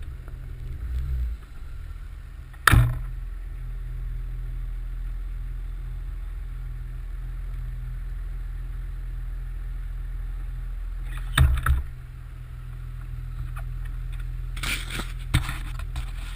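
Nissan Patrol Y60's 2.8-litre turbo-diesel engine running with a steady low rumble. Loud sharp knocks come about three seconds in and twice near the eleven-second mark, with a cluster of smaller knocks near the end.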